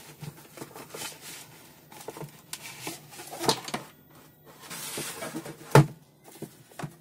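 Unboxing handling: cardboard box rustling and scraping as a sheet-metal tool case is slid out of it, with scattered small knocks. A sharp knock a little before the end, the loudest sound, as the case or box is put down on a wooden table.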